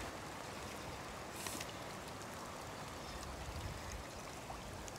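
Shallow stream trickling and burbling steadily.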